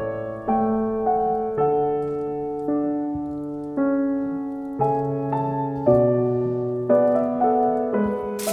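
Background piano music: a gentle melody over held chords that change about once a second.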